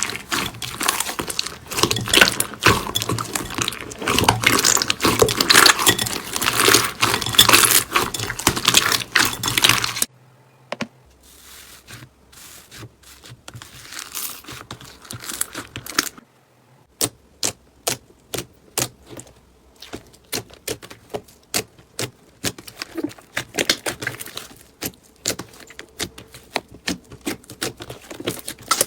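Slime being squeezed and worked by hand. For about ten seconds there is a dense, crackling crunch, then the sound cuts to a quieter stretch, then a run of sharp clicking pops, several a second, in the later part.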